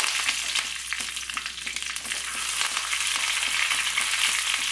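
Fresh curry leaves sizzling in hot coconut oil with popped mustard seeds and a dried red chilli, a South Indian tempering (tadka). The crackle is steady and dense.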